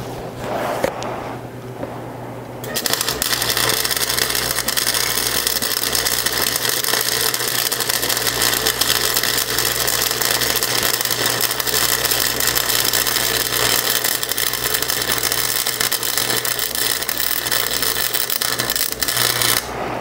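Wire-feed welder arc crackling steadily as a continuous weld bead is run joining two steel sprockets. It starts about three seconds in and stops just before the end, over a steady low hum.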